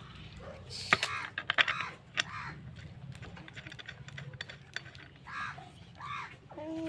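A quick run of sharp clicks and knocks about a second in, the loudest thing here, with crows cawing a few times in the background and a short honk-like tone near the end.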